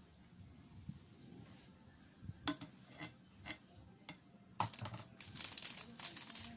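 A few light clicks of a small cup and spoon, about half a second apart. Then, about four and a half seconds in, a seasoning sachet crinkles as it is picked up and handled.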